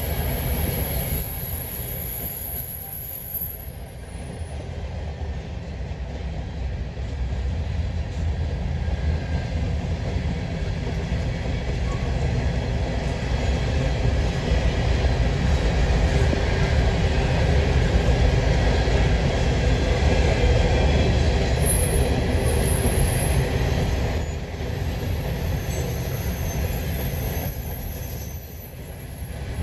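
Covered hopper cars of a Canadian National freight train rolling past: a steady low rumble of steel wheels on the rails, dipping briefly about four seconds in and again near the end.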